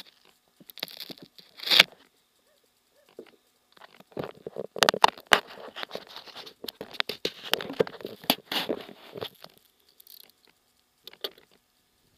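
Handling noise on a small camera: fingers rubbing, scraping and tapping on its case close over the microphone, in irregular scratchy bursts with sharp clicks. There is a short bout near the start, a longer one from about four to nine seconds in, and a brief one near the end.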